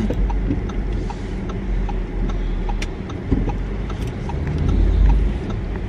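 Road and engine noise inside a moving car's cabin: a steady low rumble that swells briefly about five seconds in.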